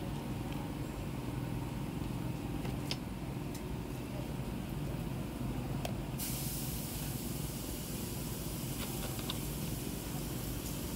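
Steady outdoor background noise: a low rumble with a hiss that jumps louder about six seconds in, and a few faint light clicks.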